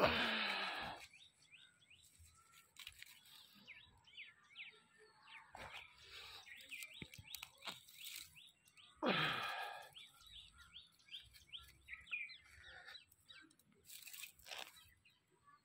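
Small birds chirping over and over in quick short notes. A louder harsh call comes at the very start and again about nine seconds in.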